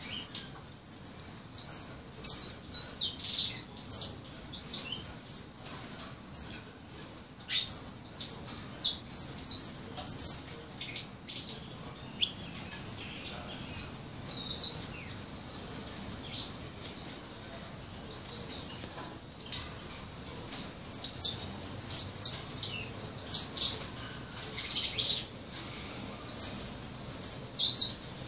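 A young songbird practising its song: a long, rambling stream of high chirps and twitters with only brief pauses.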